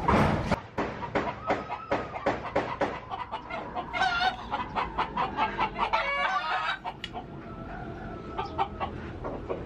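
Chickens clucking in a quick run of short calls, several a second, with a rooster crowing briefly about six seconds in.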